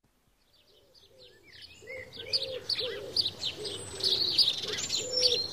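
Birdsong: several small birds chirping, over a low, repeated cooing call. It fades in from silence over the first two seconds.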